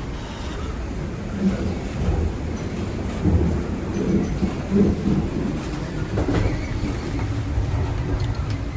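Inside a moving TTC Line 1 Toronto Rocket subway car: a steady low rumble of the train running on the track, with scattered knocks and clatter from the wheels and car.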